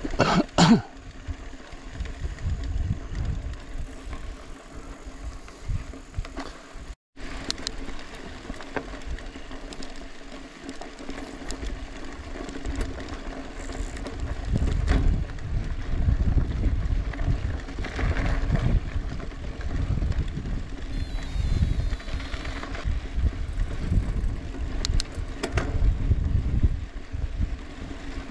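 Wind buffeting the microphone during a ride, in uneven gusts, over a steady low hum. The sound cuts out completely for a moment about seven seconds in.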